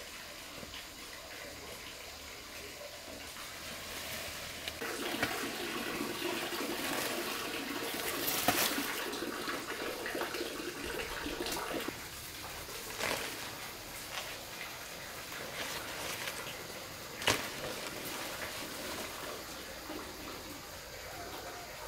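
Water rushing and splashing, swelling about five seconds in and easing off after about twelve seconds, with a few sharp knocks.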